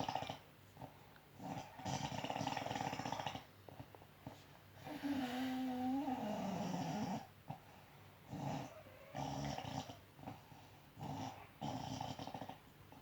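An elderly woman snoring: a run of rough, buzzing snores, each a second or two long. A longer one near the middle carries a drawn-out moan that falls in pitch.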